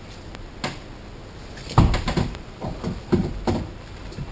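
Several knocks and bumps as a wooden overhead cabinet is handled and pressed into place against a van's ceiling. The loudest knock comes about two seconds in, with a few smaller ones after it.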